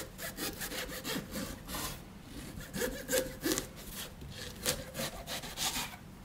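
A large kitchen knife sawing back and forth through the firm, netted rind of a Limelon (lime-melon hybrid) on a wooden chopping board, in a run of short strokes, about three a second.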